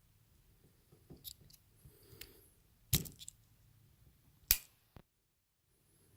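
Bottle opener of a Victorinox Swiss Champ pocket knife being worked open and snapping into position: two sharp metallic clicks about three and four and a half seconds in, with fainter metal ticks before and after.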